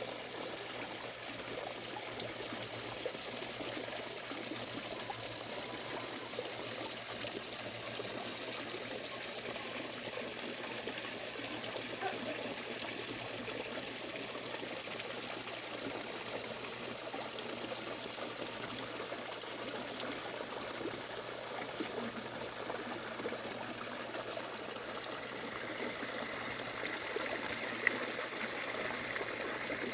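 Water trickling and running steadily, a continuous even splashing flow.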